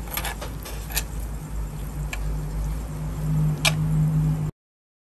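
Metal spoon clinking and scraping against a hot sizzling plate as pork sisig mixed with egg is stirred, a few sharp clicks over a steady low hum. The sound cuts off suddenly near the end.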